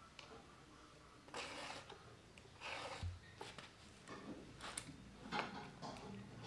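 Round file rasping across the steel cutter teeth of a chainsaw chain in a string of short strokes, with a low bump about three seconds in. The file is sharpening teeth dulled by striking stones.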